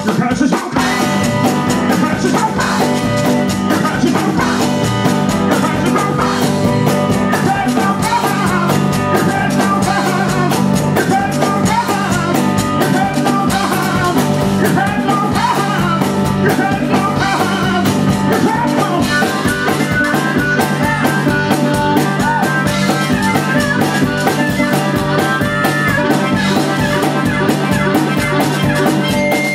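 Country-blues band playing live: guitar over a fast, steady drum beat.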